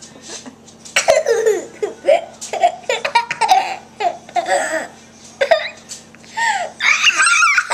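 A young child laughing in short repeated bursts of high-pitched giggles and squeals, starting about a second in and loudest near the end.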